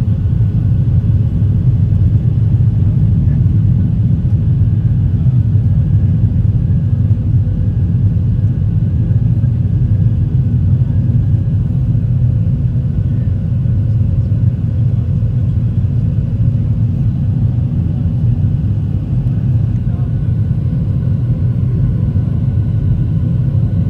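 Boeing 737 cabin noise during the climb after takeoff: a steady, loud low rumble of the engines and rushing air, with faint steady whining tones above it.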